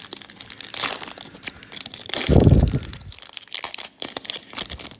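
Foil wrapper of a Panini Mosaic basketball card pack crinkling and tearing as it is ripped open by hand. A louder low rumble lasting about half a second comes a little after two seconds in.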